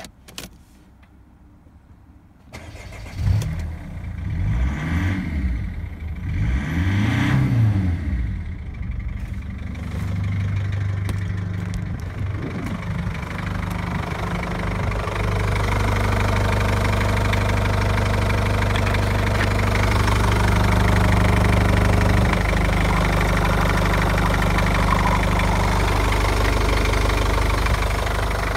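Mercedes W210 2.2 CDI four-cylinder common-rail diesel started from cold: it catches about three seconds in and its revs rise and fall twice. It then settles into a steady idle that grows louder from about fifteen seconds on.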